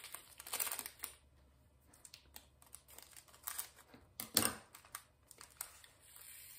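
Handling noise from kitting up diamond-painting drills: plastic crinkling and small clicks from drill bags and storage cubes. A short rustle comes just under a second in, and the louder rustle comes about four and a half seconds in.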